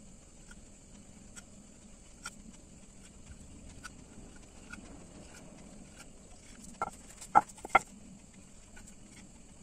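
Knife cutting rolled nimki dough into strips on a round rolling board: faint taps and scrapes of the blade, then three sharp clicks close together about seven seconds in.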